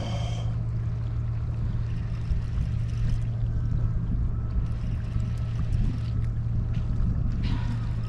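Steady low wind rumble on the microphone, with faint sounds of a fixed-spool reel being wound as a fish is played on a sea-fishing rod.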